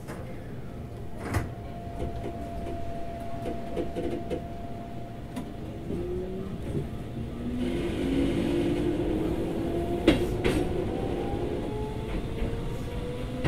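Running sound inside a Keikyu 2000 series electric train: a steady hum, then from about five seconds in the traction motor whine rises in pitch as the train accelerates. There are a few sharp knocks along the way.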